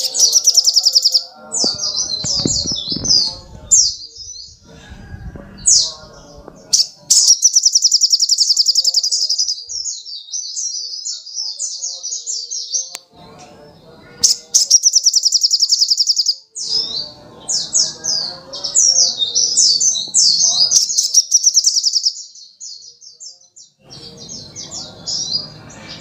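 Male olive-backed sunbird (sogok ontong) singing persistently: high-pitched, fast rattling trills, three times, broken up by sharp, rapid twittering chirps.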